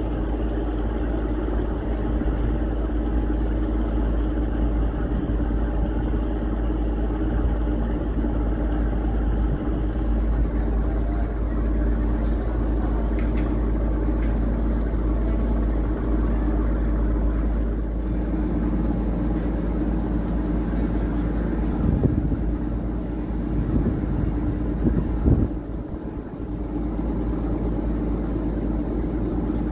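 Riverboat engine running steadily underway, a low drone with steady tones.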